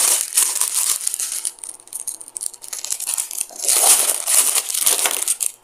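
Clear plastic packaging crinkling and rustling as it is handled around a small accessory. There are two spells: one in the first second and a half, and a louder one from about three and a half seconds in to near the end.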